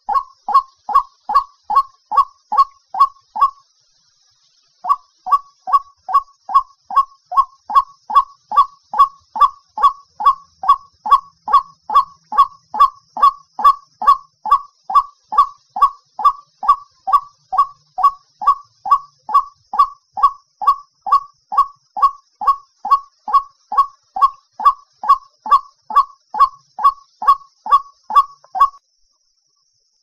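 White-breasted waterhen giving its repeated "ruak" call, about two notes a second, with a pause of about a second near the start and stopping a little before the end.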